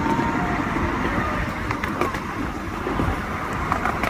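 Steady rumble of a 7¼-inch gauge ride-on miniature railway train running along its track, heard from an open passenger car.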